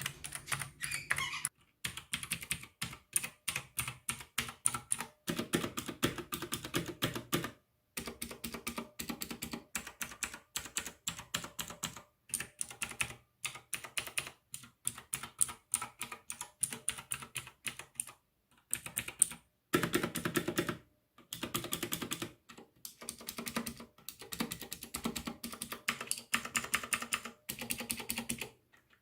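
Fast typing on a mechanical computer keyboard: quick runs of sharp key clicks, several a second, broken by short pauses.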